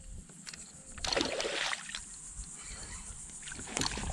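Water splashing beside a kayak as a hooked black drum thrashes at the surface near the landing net: a short burst of splashing about a second in, then choppier, louder splashes near the end.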